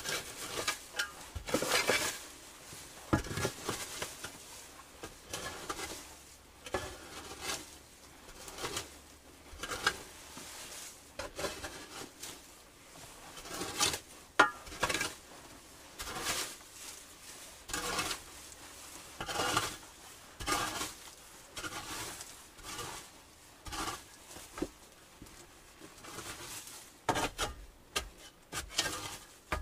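Irregular knocks, clinks and scrapes of objects being handled, coming every second or so.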